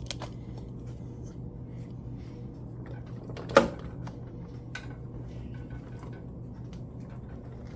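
Vending machine being handled: scattered light clicks and knocks over a steady low hum, with one sharp clack about three and a half seconds in.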